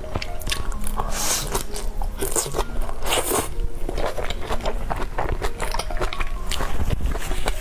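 Close-miked biting and chewing of spicy skewered food: many short crunchy bites and wet chewing clicks in quick succession, with two brief hisses about a second in and about three seconds in.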